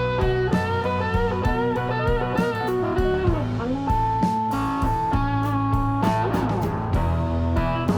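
Background music led by an electric guitar playing a melody with bent notes, over a steady bass line and a beat.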